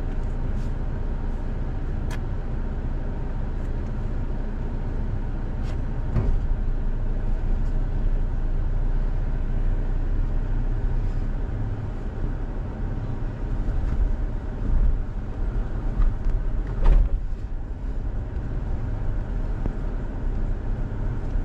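Toyota Tacoma pickup crawling slowly along a rough dirt trail, heard from inside the cab: a steady low rumble of engine and tyres, with a few short knocks and clunks, the loudest about 17 seconds in.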